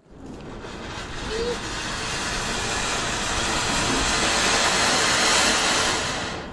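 Colour koti flower-pot fountain firework hissing as it sprays sparks. The hiss builds over the first couple of seconds after lighting, holds steady and eases slightly near the end.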